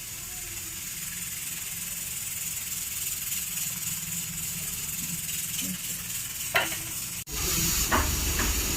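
Steady sizzling hiss of food frying in a pan, with a single short knock about six and a half seconds in. The sound drops out abruptly near the end and comes back louder.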